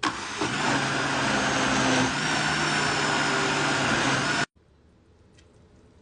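Countertop blender motor running at speed, puréeing cooked lentils. Its pitch shifts slightly about two seconds in, and it stops abruptly after about four and a half seconds.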